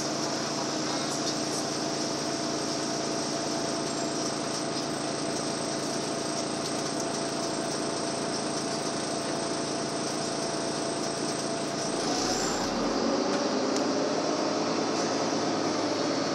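Inside a Karosa B941E city bus under way: steady engine drone and road noise with a thin steady whine. About twelve seconds in, the engine note shifts and grows a little louder.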